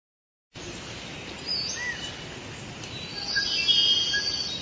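Forest ambience: several birds chirping and calling over a steady hiss, starting about half a second in. A high, shimmering trill is loudest from about three to four and a half seconds in.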